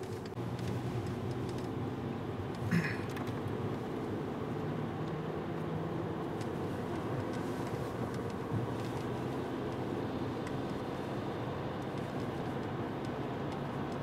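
Car running along a city street, heard from inside the cabin: steady engine and road noise, with one short higher-pitched sound about three seconds in.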